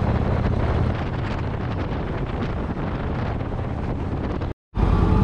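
2017 Indian Chief Vintage's Thunder Stroke 111 V-twin running at a steady cruise, with wind rushing over the microphone. About four and a half seconds in, the sound cuts out for a moment, then resumes louder.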